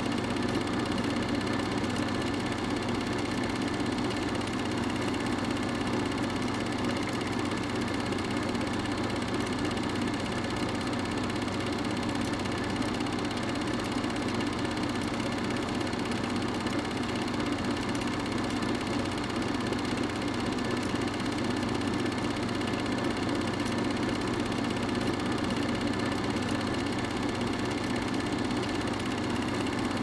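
Steady whirring of a film projector running, with a constant electrical hum beneath it, unchanging throughout.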